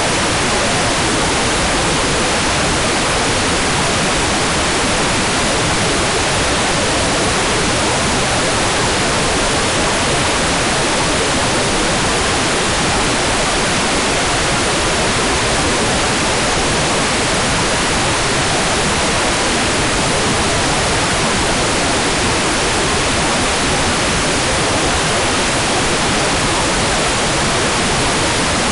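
Hairdryer running steadily: a continuous, even rush of air that stays at the same level and pitch throughout.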